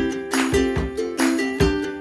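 Background music with a steady beat of about two beats a second over held melodic notes.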